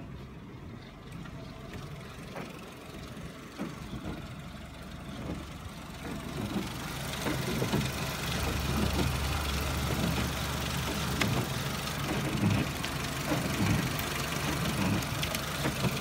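Renault K4J 1.4-litre 16-valve petrol four-cylinder engine idling steadily, louder from about six seconds in where it is heard close up in the engine bay.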